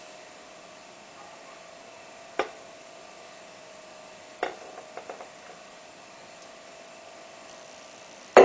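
Steady faint hum with a few sharp clinks of kitchenware, then near the end a loud porcelain clatter as an espresso cup is lifted from its saucer. The milk pouring into the glass makes little audible sound.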